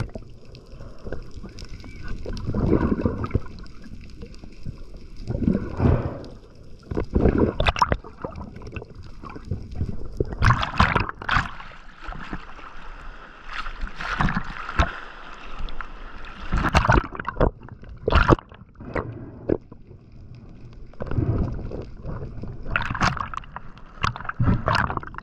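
Sea water sloshing, gurgling and splashing around the camera as it rides in the waves at the surface and dips under, coming in irregular surges.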